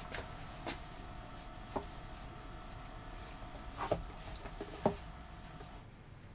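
Books being handled on wooden library shelves: a few soft, scattered knocks and scrapes, the two loudest about four and five seconds in, over a steady faint hum that drops away near the end.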